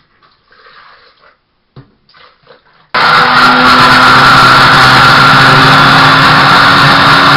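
Countertop blender switched on about three seconds in, running loud and steady as it blends salad greens, a habanero pepper and grape juice.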